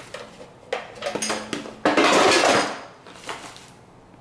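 Bella air fryer's plastic basket drawer being pulled out. There are a few clicks and knocks, then a loud scraping slide lasting about a second, and one more click.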